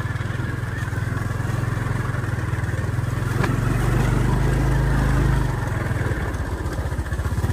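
Small vehicle engine running steadily with a fast, even pulse; its speed shifts slightly partway through.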